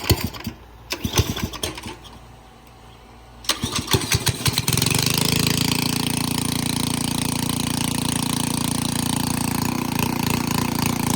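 Old pressure washer's small gasoline engine being pull-started on its recoil cord. A few sputtering pulls, then about four and a half seconds in it catches and runs steadily. It is starting with its carburetor freshly cleaned.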